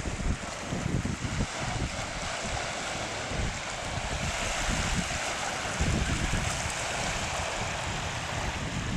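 Sea surf washing in and breaking against rocks, a steady rushing wash, with gusty wind buffeting the microphone in low, uneven rumbles.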